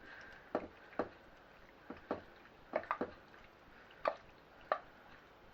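Tomato-sauced pasta being spooned from the pan into a small casserole dish: about eight short knocks and wet plops at uneven intervals.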